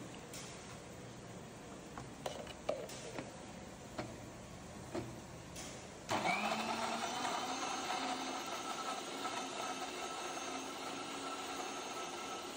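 A few light knocks and clinks as the mixie jar is handled. About six seconds in, an electric mixer grinder's motor starts with a quick rising whine and runs steadily, wet-grinding dried chillies, fried shallots and tamarind water into chutney.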